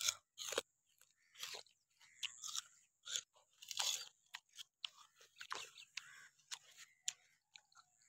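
Raw sugarcane stalk being bitten and chewed: a string of irregular crunches and crackles as the cane is crushed between the teeth, loudest about half a second in and again around four seconds.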